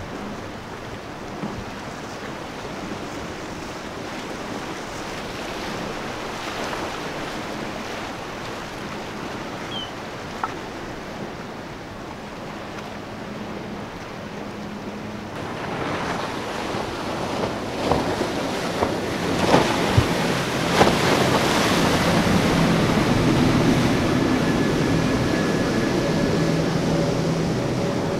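Powerboat engines droning as boats run through choppy inlet water, mixed with the wash of surf and wake and wind rumbling on the microphone. About halfway through it grows louder, with a few sharp knocks, and the engine drone is strongest near the end as a multi-outboard boat passes close.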